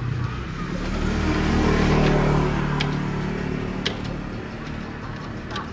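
A motor vehicle's engine passing by, growing louder to a peak about two seconds in and then fading away, with a couple of light clicks near the end.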